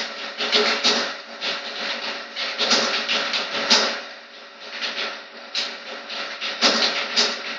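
Fast typing on a computer keyboard: a quick, uneven run of key clicks with a brief lull about four seconds in, over a steady low hum.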